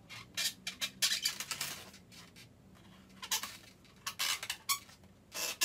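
Marker pen drawn across an inflated latex balloon: a series of short, squeaky strokes with a pause in the middle, a few of them giving a brief rubbery squeal.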